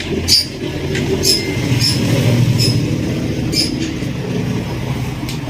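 Common rail injector test bench running with a rebuilt Komatsu injector: a steady rumble of the bench's pump and motor, with short sharp hisses of the injector's spray roughly once a second.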